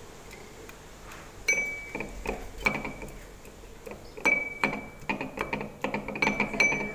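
Pestle pounding and grinding in a mortar to make chutney: a series of sharp clinks, several with a brief ring, starting about a second and a half in and coming faster, a few strikes a second, toward the end.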